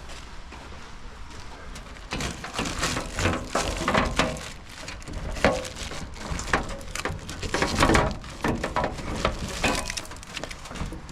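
Irregular rustling, scraping and knocking of a part being worked out of its packaging, starting about two seconds in and going on for most of the rest.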